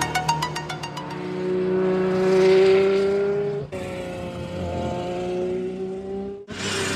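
A high-revving race car engine running at speed, its pitch climbing slowly. The sound breaks off abruptly twice, about four seconds in and near the end. A fading electronic music beat is heard in the first second.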